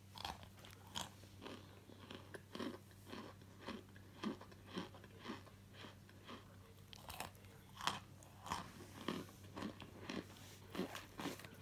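Dry lumps of starch crunching, in a steady run of short crisp crunches about twice a second.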